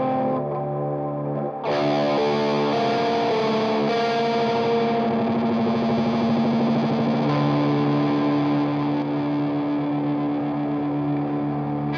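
Electric guitar through a Keeley D&M Drive pedal at a high-gain setting: distorted chords ringing out and sustaining. A fresh chord is struck about a second and a half in, and the notes change twice later on.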